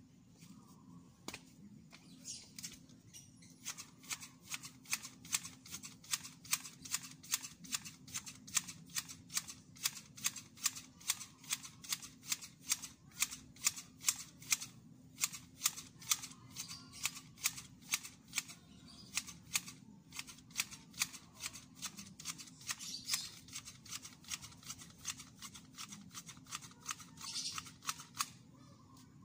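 Hand grass shears snipping grass over and over in a steady rhythm, about three cuts a second. The run starts about two seconds in and stops near the end.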